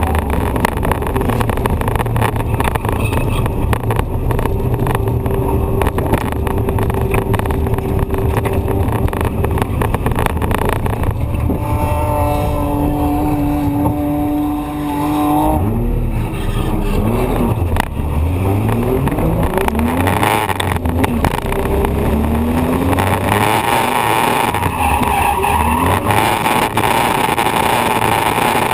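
Drift car's engine running loud with tyre and wind noise on a door-mounted camera; about halfway through it settles to a steady hum for a few seconds, then revs up and down repeatedly.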